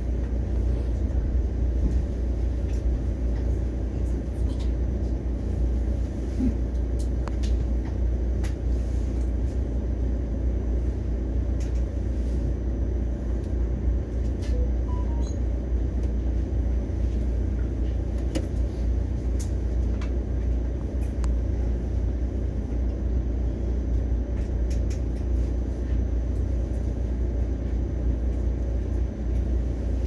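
Mugunghwa-ho passenger train running along the line: a steady low rumble with faint, irregular ticks now and then.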